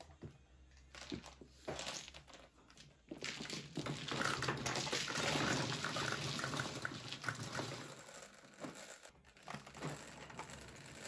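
Mahjong tiles clattering in a dense rush as they are swept by hand into the centre opening of an automatic mahjong table, after a few separate clicks of tiles being pushed over. The table's motor hums underneath, and the clatter dies down about eight seconds in.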